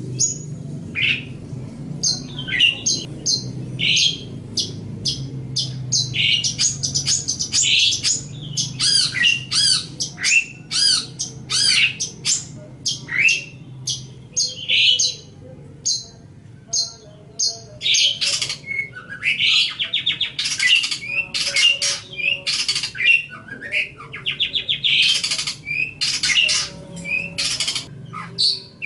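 Long-tailed shrike (cendet) singing a fast, varied chattering song of short sweeping notes and whistles. Harsher, buzzy rattling notes come in over the second half.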